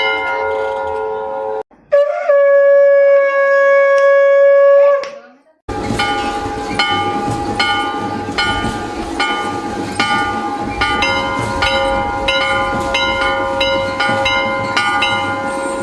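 Temple conch shell (shankh) blown in one long steady note of about three seconds, after a bell's ringing dies away. Then a temple bell (ghanta) is struck over and over, about two to three strokes a second, with a steady held tone joining under the ringing about eleven seconds in.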